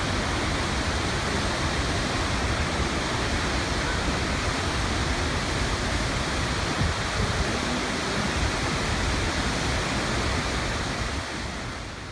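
Steady roar of Victoria Falls, the Zambezi pouring over the rock lip at close range, fading out near the end.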